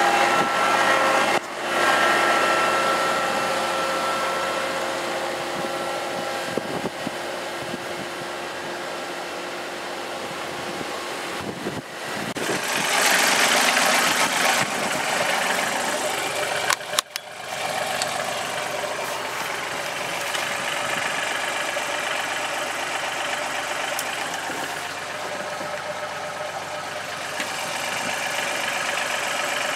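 John Deere compact tractor's diesel engine idling steadily for the first couple of seconds, then fading, followed by a steady rush of wind with a strong gust about halfway through.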